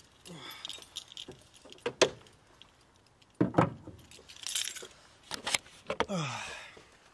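Keys jangling and clinking, with scattered handling clicks and knocks and one sharp click about two seconds in.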